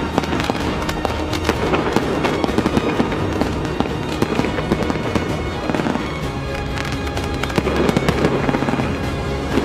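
A dense, rapid string of firework shots and crackles from a twin-barrel 'Gatling' firework, going on without a break, over background music.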